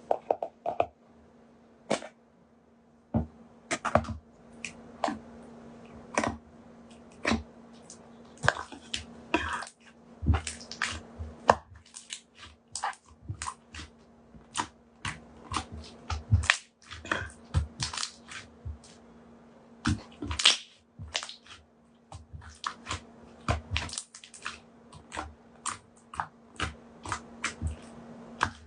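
Slime being played with by hand, squished and poked, making many sharp, irregular clicks and pops, several a second.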